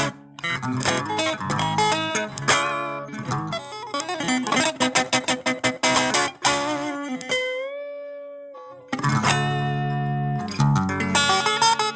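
Guitar playing quick runs of picked notes. About seven seconds in, a single note is bent up slightly and held for about a second and a half, then the fast picking resumes.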